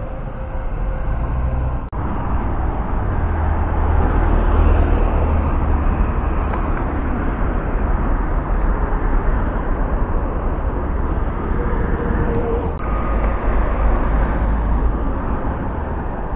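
Town-centre road traffic: cars and double-decker buses driving past, a steady rumble of engines and tyres. The sound breaks off abruptly about two seconds in and again near thirteen seconds.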